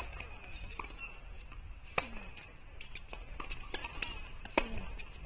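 Tennis balls striking on an outdoor hard court: a racket hit right at the start, then two sharper ball knocks about two seconds and four and a half seconds in, with fainter knocks in between.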